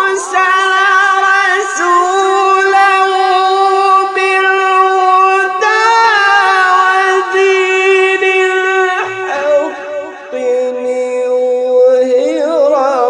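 Quran recitation in tajweed style: one reciter's voice chanting in long, drawn-out melodic phrases with sustained notes and ornamented turns. About nine seconds in, a short breath breaks the line and a new phrase begins on a lower note.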